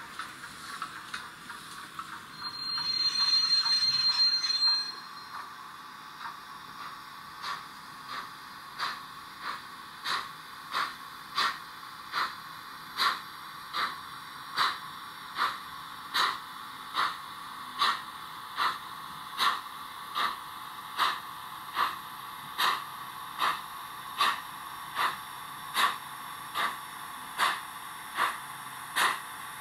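Steam sounds from an ESU LokSound V5 micro decoder in a Roco DR class 93 steam tank locomotive model, played through its small speaker. A steady whistle blast of about two seconds comes a couple of seconds in. Then steady exhaust chuffs follow, a little over one a second, getting louder at first as the model draws near.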